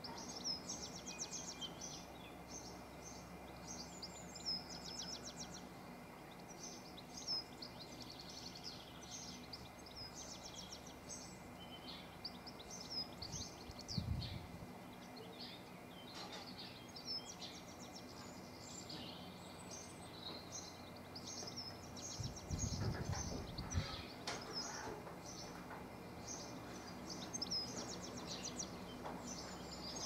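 Outdoor birdsong: several small birds singing and chirping throughout, a busy mix of short high notes and rapid trills. Low thuds about halfway through and again a few seconds later.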